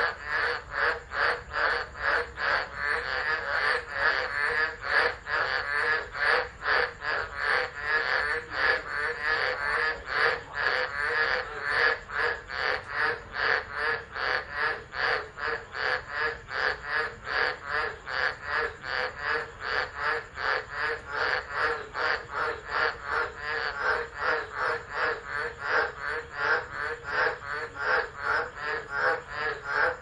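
Dense chorus of tropical frogs calling together. It makes a steady, pulsing rhythm of roughly two to three calls a second.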